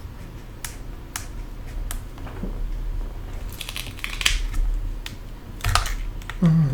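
Scattered clicks and a brief scraping of small tools against an iPad's home button and casing during a delicate repair, over a steady low hum. A short low grunt falling in pitch comes near the end.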